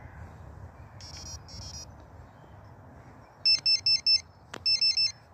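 Electronic carp bite alarm beeping: two short buzzy tones about a second in, then two quick runs of four sharp high beeps near the end as the rod and line are handled on it.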